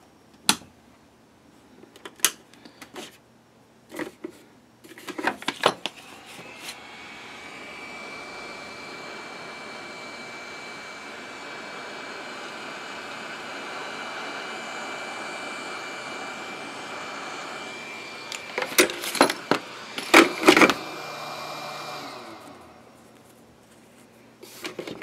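Hot air rework station handpiece blowing hot air, a steady rush of air with a high fan whine, starting about five seconds in and cutting off a few seconds before the end; it is being played over 3D-printed PLA keyrings to clear off stringing. A few clicks and knocks come before it starts, and louder knocks come near its end.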